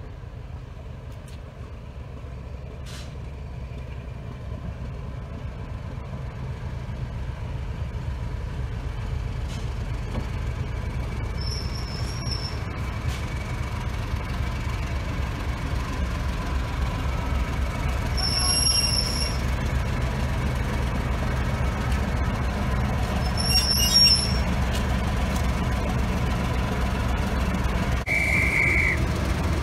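British Rail Class 31 diesel locomotive's English Electric V12 engine running as the locomotive creeps closer, growing steadily louder, with a faint steady whine. Three brief high squeals from the wheels come about twelve, nineteen and twenty-four seconds in, and a short high tone lasts about a second near the end.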